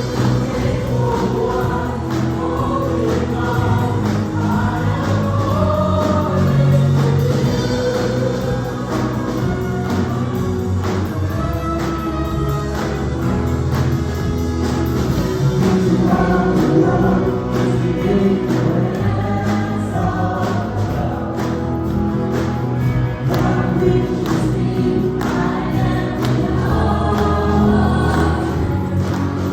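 Choir singing a gospel-style worship song with a band accompaniment and a steady beat.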